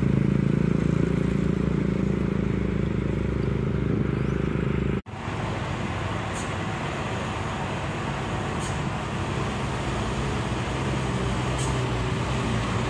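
Heavy truck's diesel engine giving a steady low drone as it climbs toward the roadside. After a sudden cut about five seconds in, there is road traffic noise, and a light box truck's engine grows louder as it approaches.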